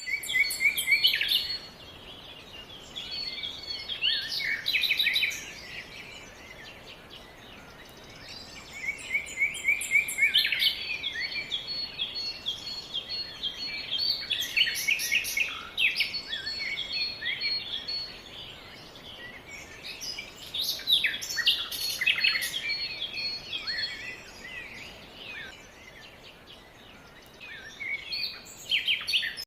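Several songbirds chirping and singing, in busy bouts of a few seconds with quieter lulls between them, over a faint steady background hiss.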